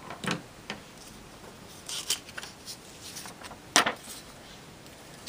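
Sheets of paper being handled and swapped: a few short rustles, the loudest just under four seconds in.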